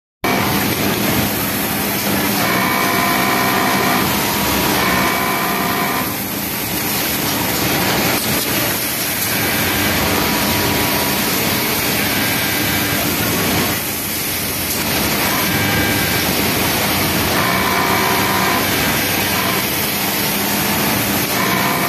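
Pegasus W600 flatlock industrial sewing machine stitching in short runs of a second or two, its pitched whine starting and stopping about seven times. A steady machine noise goes on underneath.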